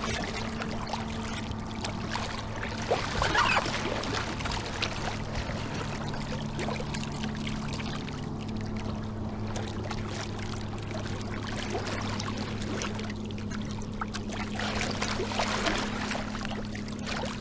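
Water rushing and splashing along the hull of a wooden sailing canoe under way, with brighter splashes about three seconds in and again near the end, over a steady low hum.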